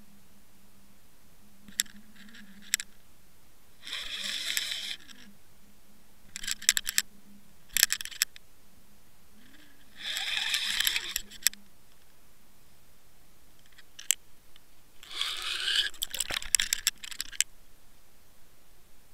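Scraping bursts about a second long, with scattered sharp clicks, picked up by an underwater camera in a waterproof housing as it is hauled up through the water on a fishing line. A faint steady low hum runs underneath.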